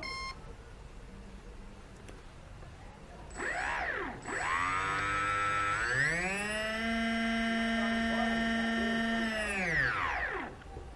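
Small brushless RC aircraft motor running with no propeller, driven by its speed controller from the transmitter throttle to check its direction of spin: a brief whine that rises and falls about three seconds in, then a steady whine that steps up in pitch about six seconds in, holds, and winds down near the end. A short electronic beep from the speed controller sounds right at the start.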